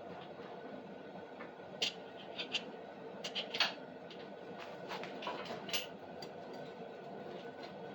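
Steady background noise of a propane heater running, with a scatter of short, light metallic clicks and clinks in the middle as bolts are fitted through an engine mount.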